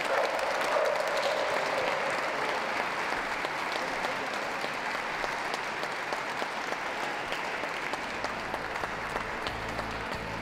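Audience applauding, a dense patter of clapping that slowly thins and fades. Music comes in near the end.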